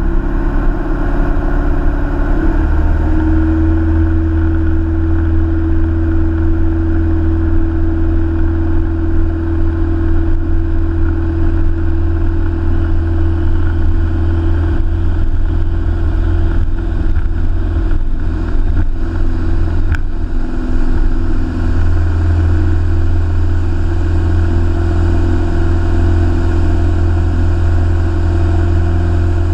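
Light aircraft's single piston engine, heard from inside the cabin, coming up to full takeoff power over the first few seconds and then running steadily at full throttle through the takeoff roll and liftoff.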